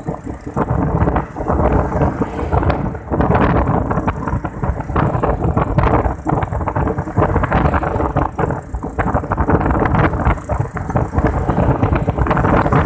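Wind buffeting the microphone over the steady hum of a moving vehicle's engine.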